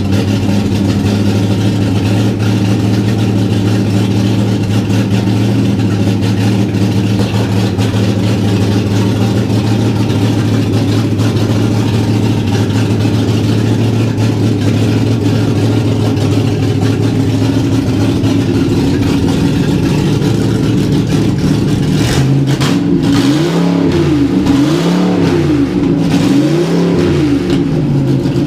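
Dodge pickup's engine running very loud on open headers at a steady fast idle during its camshaft break-in, then revved up and back down several times near the end.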